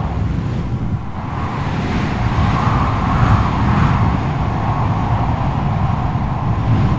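Strong wind blowing continuously, with a deep low rumble and a whistling howl that swells in a gust about three seconds in.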